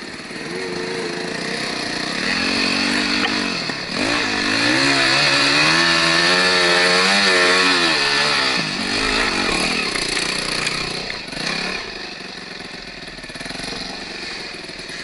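Enduro dirt bike engine running under throttle, its pitch rising and falling as the throttle is worked. It is loudest around the middle and drops away after about twelve seconds.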